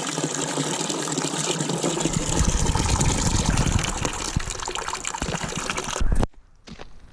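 Water gushing from a tap into a bucket as it fills, a steady rushing that cuts off suddenly about six seconds in.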